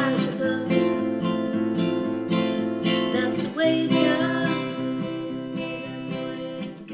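Music: acoustic guitar strumming chords with no singing, getting gradually quieter in the second half.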